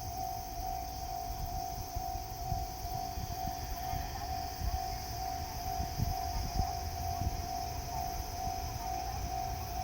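Japanese railway level-crossing warning bell ringing: one steady electronic tone repeating in even quick pulses, over an uneven low rumble.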